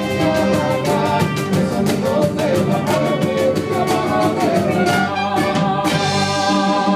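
Band music playing: a held, many-noted melody over a run of drum strokes.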